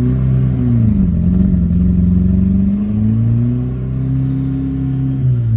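Turbocharged, carbureted VW AP engine of a Gol running under way, its pitch dropping about a second in, then rising slowly again.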